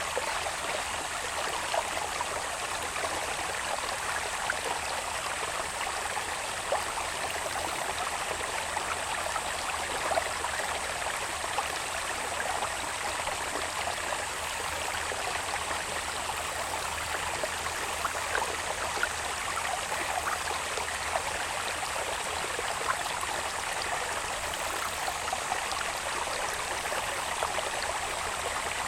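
Small irrigation waterway babbling steadily, full of small splashes, with a steady high-pitched insect drone above it.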